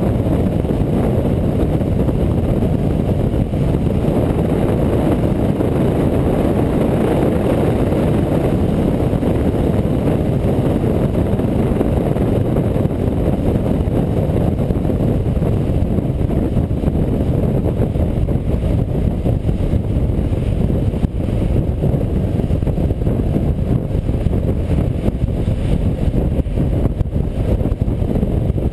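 Motorcycle riding at road speed: a steady rush of wind over a bike-mounted camera's microphone, mixed with the drone of the engine and tyres.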